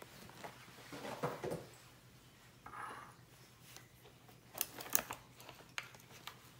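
Grocery packaging handled on a granite countertop: a cardboard box rustles as it is moved aside, then a cluster of light clicks and taps as plastic yogurt cups are picked up, the sharpest click about five seconds in.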